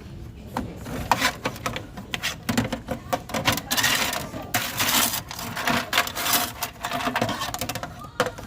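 Candy being handled, making a dense, irregular run of crackling clicks and rustles that starts about half a second in and stops just before the end.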